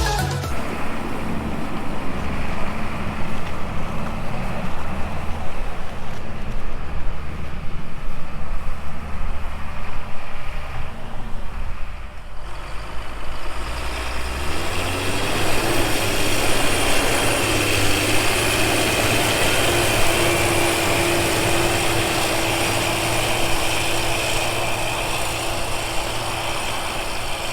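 A large engine running steadily. About two-thirds of the way in the sound changes: a steady whine and a rushing hiss join the engine.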